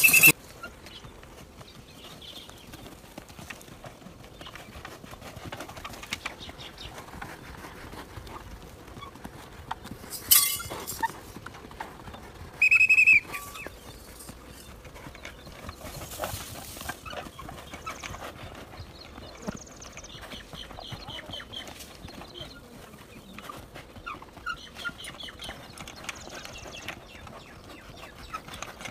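A race bull's hooves drumming on loose dirt as it runs laps around a tethered pole. A sharp knock comes about ten seconds in, and a short shrill whistle follows a couple of seconds later.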